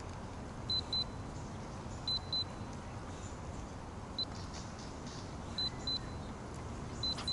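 Short, high-pitched beeps at one steady pitch, mostly in pairs, repeating every second or two over steady background noise.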